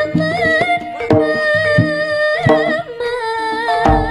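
Live jaranan gamelan music: repeated kendang drum strokes under a sustained, wavering high melody line, with a deep drum stroke near the end.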